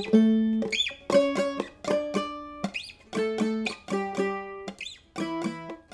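Instrumental music played on a plucked guitar, short phrases of picked notes separated by brief pauses, with a few quick rising glides.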